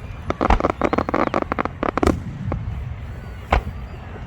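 Aerial fireworks bursting: a dense run of crackling pops and bangs in the first two seconds, then a single loud bang about three and a half seconds in.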